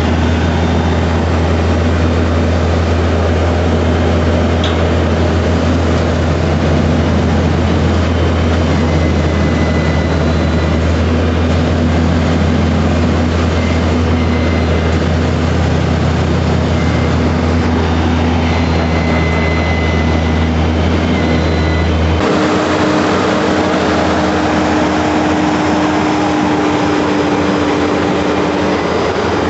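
A heavy-haul tractor-trailer's diesel engine runs steadily while its long multi-axle trailer rolls slowly through a turn, making a loud, continuous low rumble. About three-quarters of the way through, the deepest rumble cuts out suddenly and a steadier hum carries on.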